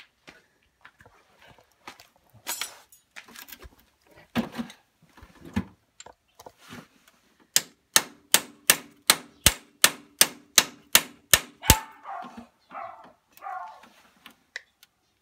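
Hammer striking a steel punch to drive a brake-shoe pivot pin into a tractor's drum brake: scattered metal clinks and knocks, then about halfway through a run of about fourteen quick, ringing strikes, some three a second.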